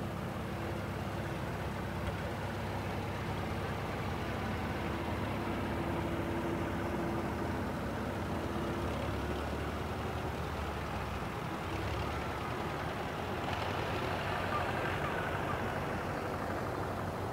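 Vintage Farmall and Allis-Chalmers farm tractors' engines running steadily at low speed as they drive slowly past, a low, even engine note.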